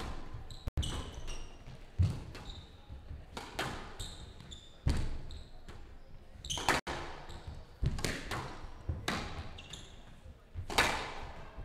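Squash rally: the ball cracking off rackets and walls about once a second, each hit echoing, with short squeaks of court shoes on the floor between the shots.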